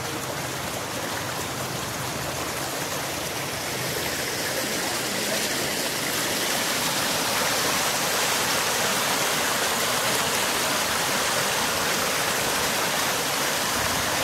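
Muddy water rushing and splashing down a narrow concrete irrigation channel: a steady, even rush that grows a little louder over the first several seconds.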